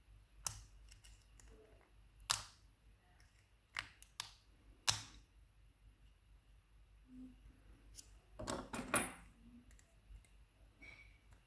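Sharp, scattered metal clicks and taps of small tools working at a lock cylinder's circlip, with a quick cluster of clicking and scraping about eight and a half seconds in.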